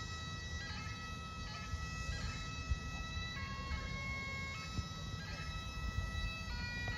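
Bagpipes playing a slow tune: held notes that step from one pitch to the next, with quick grace-note flourishes between them, over a steady low rumble.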